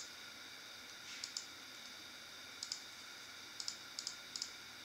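Computer mouse and keyboard clicks: a dozen short, sharp clicks, several in quick pairs, over a faint steady electronic whine.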